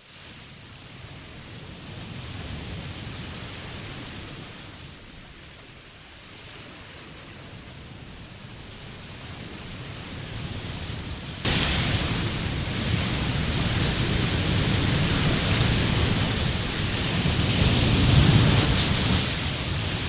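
Steady rushing water noise with no clear events, which jumps suddenly louder and brighter about eleven and a half seconds in.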